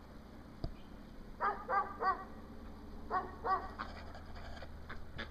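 Short animal calls: three in quick succession about a second and a half in, then two more about a second later.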